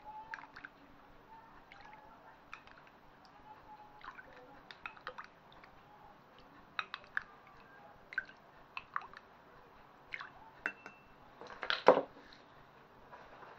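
Hot water spooned from a drinking glass into ceramic ramekins with a plastic measuring spoon: small pours and drips with light clinks of spoon against glass and ramekin, then a louder knock near the end.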